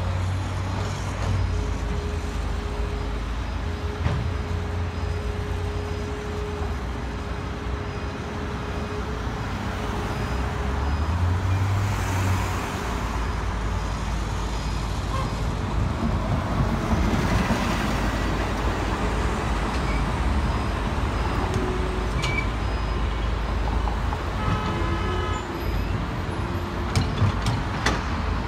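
Caterpillar hydraulic excavator's diesel engine running steadily while it digs soil and loads a dump truck, with a few sharp clanks near the end.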